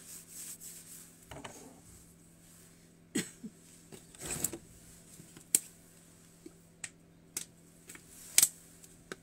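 A person drinking from a clear plastic bottle, with scattered sharp clicks and crackles, a short rustle in the middle and the loudest click near the end, over a steady low hum.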